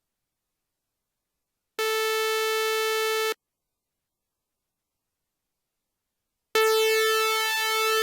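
Two synthesized electronic tones at the same pitch, each about a second and a half long, with dead silence before and between them. These are the raw tones of a school bell chime being built. The first is perfectly steady. The second wavers slightly in loudness and in its upper overtones.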